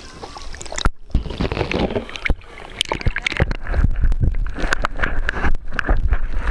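Water sloshing and bubbling around a camera as it is moved through the water, heard muffled, with a low rumble and many irregular knocks and crackles. The sound drops out briefly about a second in.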